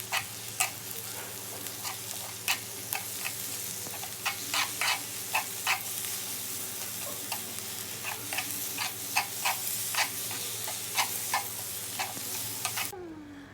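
Slices of three-layer pork belly sizzling on a hot grill, with a steady hiss and sharp pops of spitting fat about twice a second; it cuts off suddenly near the end.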